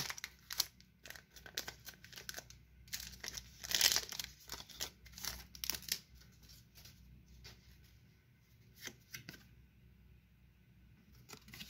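Foil Pokémon booster pack wrapper crinkling and tearing as it is opened. The crackling rustles are loudest about four seconds in and die down to a few faint clicks after about six seconds.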